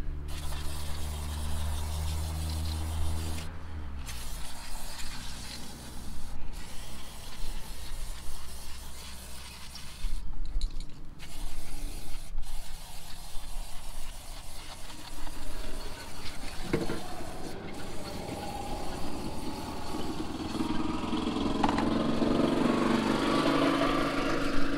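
Aerosol carb cleaner spraying in long hissing bursts with short breaks between them, blasting brake dust off a drum-brake backing plate.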